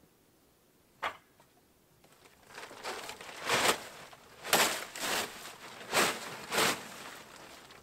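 A single knock about a second in, then a white tarp being pulled up and bunched over a sleeping platform, crinkling and rustling in repeated swishes.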